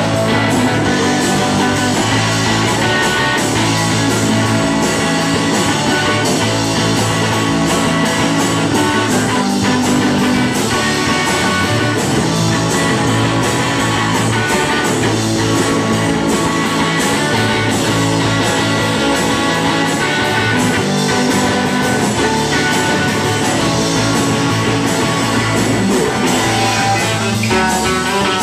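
Rock band playing live: distorted electric guitar, bass guitar and drums with a steady beat, the lead vocal buried low in the mix.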